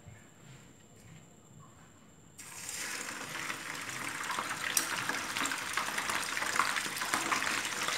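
A piece of sea fish goes into hot cooking oil in a pan, and sizzling and crackling start suddenly about two and a half seconds in and continue.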